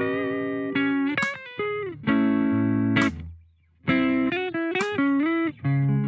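Electric guitar playing a neo soul chord progression: chords struck and left to ring, some sliding into the next chord, with a brief pause about halfway through.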